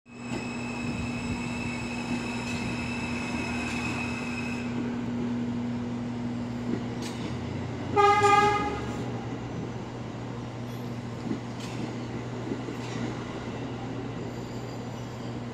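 R160 subway train pulling into the station and running past along the platform, with a steady high whine for the first few seconds. About eight seconds in the train gives one short horn blast, the loudest sound.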